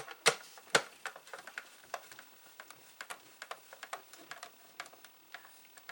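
Screwdriver driving small screws into a plastic disk-drive case: a run of small, irregular clicks, with two louder sharp knocks in the first second.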